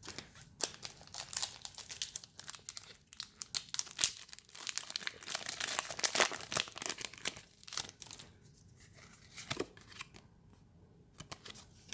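Foil wrapper of a Pokémon Forbidden Light booster pack being torn open and crinkled by hand: a run of irregular crackles and rustles, busiest in the middle and thinning out toward the end.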